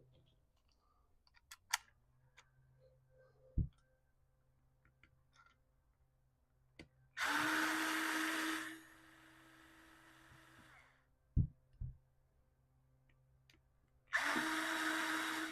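Two bursts of a handheld shop power tool running, each about a second and a half, with small clicks and knocks of carburetor parts being handled in between.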